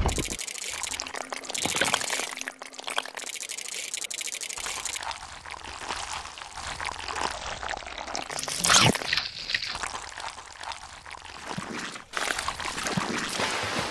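Wet mud and water sound effects: trickling, dripping and pouring, in a few segments that change abruptly, with one louder wet burst about two-thirds of the way through.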